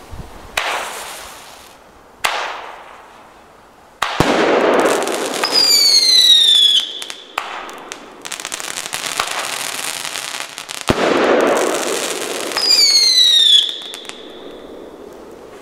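Fireworks from 1996 being launched: a few sharp cracks, each followed by a rushing hiss, and twice a shrill whistle that falls in pitch.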